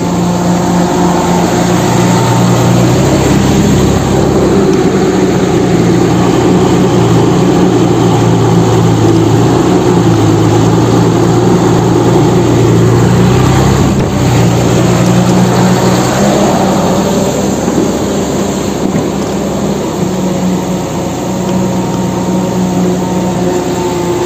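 Loud, steady engine-like drone of heavy machinery, its low pitch shifting up and down every few seconds.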